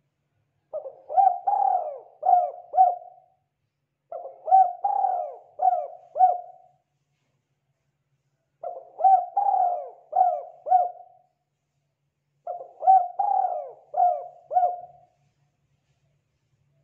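Spotted dove cooing: four separate phrases, each a run of about five quick rising-and-falling coos, repeated every four seconds or so.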